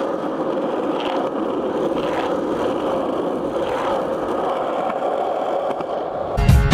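Skateboard wheels rolling over asphalt, a steady rolling noise at an even level. Music starts just before the end.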